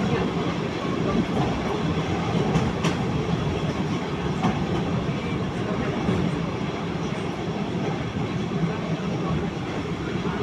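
Train wheels clattering on the rails: a steady rumble of a moving rail car with a few sharp clicks.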